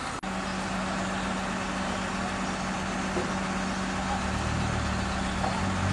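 Heavy Fuso truck's diesel engine idling steadily, with a deeper low hum coming in about four seconds in.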